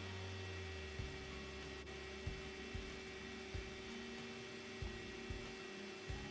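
Steady electrical hum, with a few soft low thumps scattered through it.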